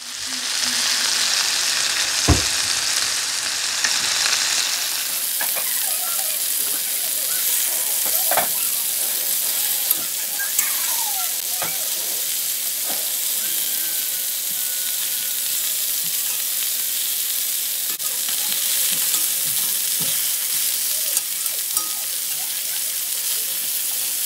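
Seasoned chicken thighs sizzling steadily in olive oil in a cast iron skillet over medium heat. A few sharp clicks and knocks come through, the strongest about two seconds in, as metal tongs turn the pieces against the pan.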